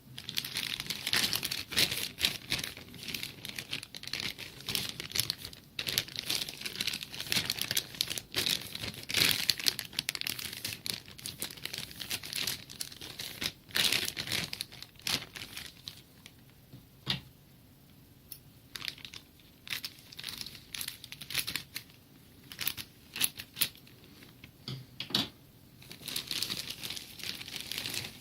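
Packaging being torn open and handled, with irregular crinkling, tearing and crackling. It is dense at first and thins to scattered rustles and clicks in the second half.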